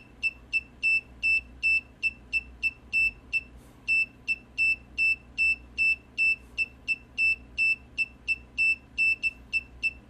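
Small electronic buzzer driven by an Arduino Nano beeping Morse code: one steady high-pitched tone keyed in short dots and longer dashes with irregular gaps, including a longer pause about three and a half seconds in. It is spelling out the typed text 'I LOVE YOUTUBE'.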